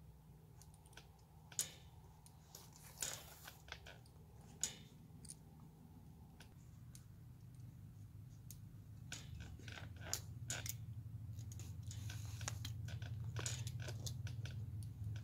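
Rabbit pelts being hand-sewn: a needle pushed and thread drawn through the dried hides, giving scattered sharp clicks and scratchy rustles. A low hum grows louder through the second half.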